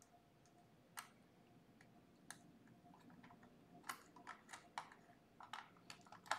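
Faint, irregular plastic clicks and taps, about ten of them and more frequent in the second half, from fingers handling wires at a contactor and terminal block on an electrical training panel.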